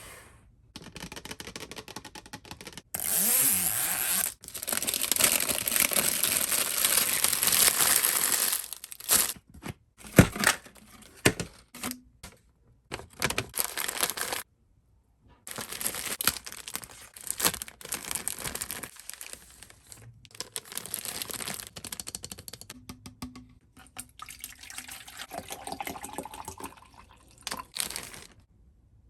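Barbie Color Reveal package being handled, with water pouring and sloshing and plastic packaging crinkling and tearing, in several stretches separated by short pauses; the loudest stretch is early on.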